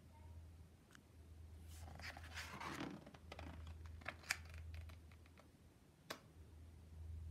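A paper page of a picture book being turned by hand: a faint rustle about two seconds in, followed by a few light taps and clicks as the page is handled and settles, over a low steady hum.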